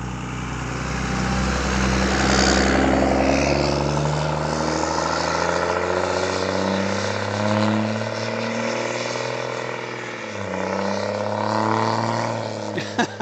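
A pickup truck driving past close by on the road, its engine note swelling and then sliding away, with tyre noise; more engine sound swells again about ten seconds in as further traffic passes.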